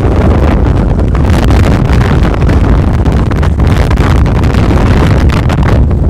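Strong, gusty wind buffeting the microphone in a loud low rumble, over choppy lake water.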